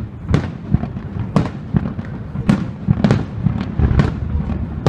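Aerial fireworks display: shells launching and bursting in a rapid run of loud booms, about two a second, with a low rumble between them.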